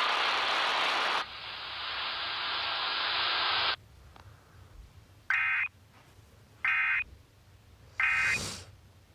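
Loud static hiss that narrows about a second in and cuts off sharply near four seconds, then three short buzzy Emergency Alert System data bursts about 1.3 seconds apart: the end-of-message code that closes the alert test.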